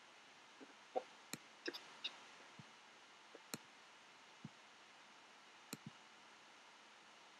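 About a dozen computer mouse clicks at irregular intervals, a few in quick pairs, over a faint steady hiss.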